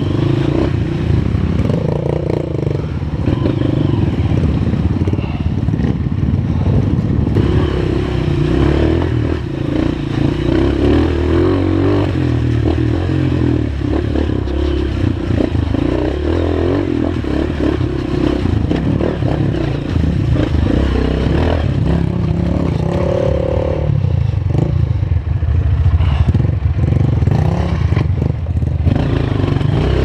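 Honda CRF230 trail bike's single-cylinder four-stroke engine running under throttle on a rough trail, its note rising and falling, with many knocks and rattles from the bike jolting over rocks and ruts.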